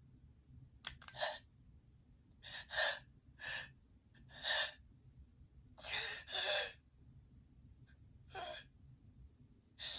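A man's voice gasping and breathing heavily in short breathy bursts, about eight with pauses between them, as part of a played-back voice line.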